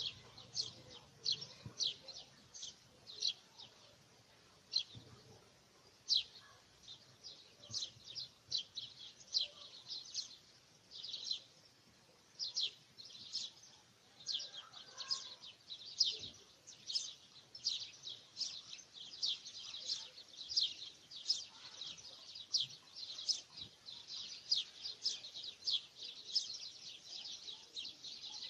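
Small birds chirping: a run of quick, high chirps, several a second, thinning briefly about four seconds in and then growing dense and continuous.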